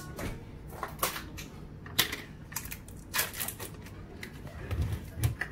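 Irregular clicks and knocks of kitchen containers and utensils being handled on a countertop, the sharpest about two seconds in, with a couple of dull thumps near the end.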